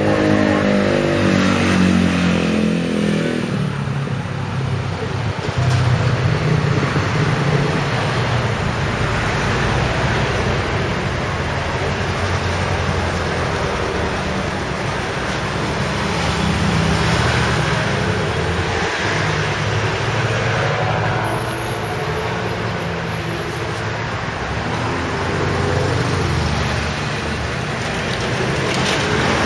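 Road traffic: vehicle engines running and passing by, the sound swelling and fading several times.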